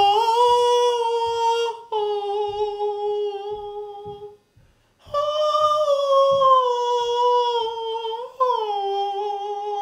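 A man singing long, high held notes on an open vowel, four in a row with short breaks, each fairly steady in pitch and sliding slightly down at its end.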